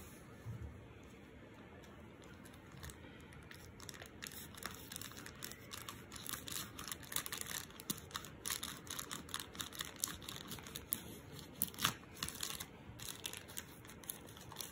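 Clear plastic courier pouch being slit with a small folding knife and pulled open, the plastic crinkling and tearing. It is faint at first, then a busy run of crackles and rustles starts about four seconds in.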